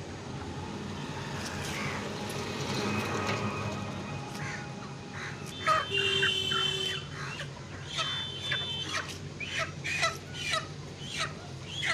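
Chickens clucking: a run of short, repeated calls that starts about halfway in and keeps going, over a steady low background hum.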